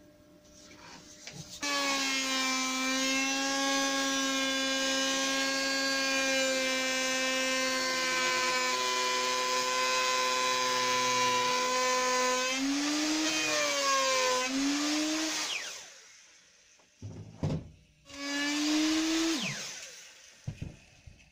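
Handheld router with a 50 mm bearing-guided flush trim cutter, trimming a pine brace flush to a template. It starts about two seconds in and runs with a steady high whine, its pitch wavering for a few seconds as it cuts, then it is switched off and winds down. Near the end there is a short second run that falls away, with a few clicks.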